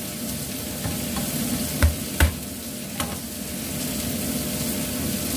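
Two dull knocks on a wooden cutting board, a little under two seconds and about two and a quarter seconds in, then a lighter tap near three seconds, over a steady kitchen hiss.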